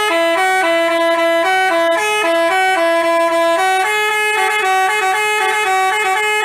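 Basuri telolet musical horn playing a tune in two voices at once: clear, loud, steady tones stepping from note to note without pause.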